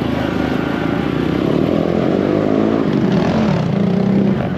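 Small 125cc motorcycle engine running as the bike rides along, its note falling and rising with speed and climbing near the end as it pulls away.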